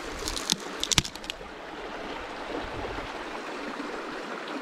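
Dry cedar wood cracking and splintering, a quick series of sharp snaps in the first second or so as a piece is broken off a downed cedar tree, over the steady rush of a creek.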